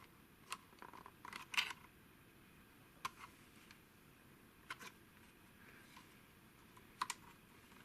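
Scattered light plastic clicks and taps from handling a Samsung Gear VR headset while working its swappable USB connector loose. The clicks come singly and in short clusters, a handful of times.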